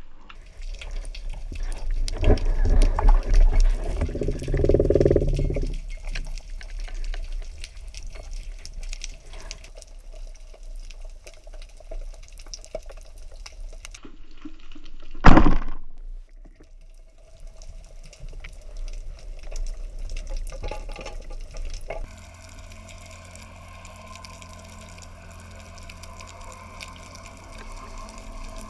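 Muffled underwater noise picked up by a camera mounted on a speargun: water sloshing and bubbling, louder in the first few seconds. Halfway through comes one loud, sharp knock.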